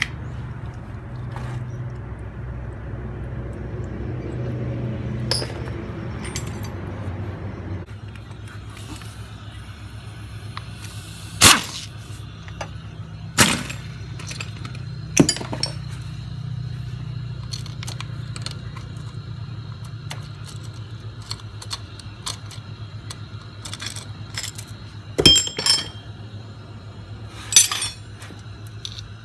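Metal clinking and a chain jangling as a motorcycle engine's timing chain and sprockets are handled. Several sharp, loud clinks are spread through, over a steady low hum.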